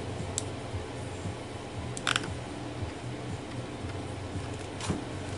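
Steady low machine hum from a CNC milling machine that is powered up and waiting, not yet cutting, with a few short clicks.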